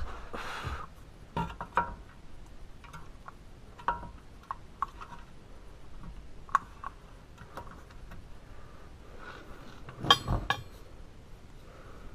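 Hand tools and metal suspension parts clicking and clinking now and then during work on a car's front suspension, with a louder run of clinks about ten seconds in. A brief rustle of clothing at the start.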